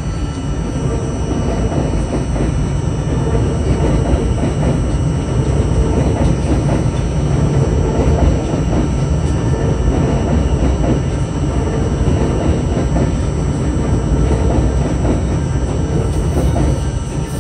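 An R42 New York City subway car running along the track, heard from inside the car: a steady, loud noise of wheels on rails and the car's running gear, with a few steady whining tones on top.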